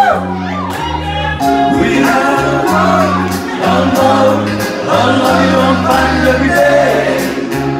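Karaoke: a man singing into a microphone over a backing track with a steady drum beat and a moving bass line.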